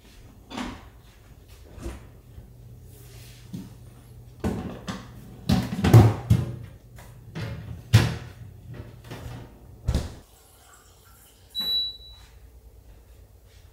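Refrigerator door opened and things inside handled: a series of knocks and clunks, loudest about six seconds in. A short high beep comes near the end.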